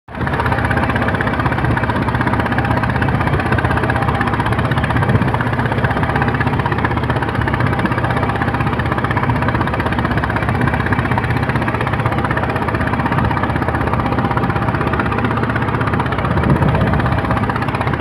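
Engine of a wooden passenger boat running steadily under way, with water rushing and splashing along the hull.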